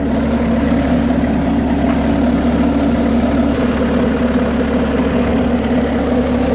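1997 Bobcat 763 skid steer loader's diesel engine idling steadily.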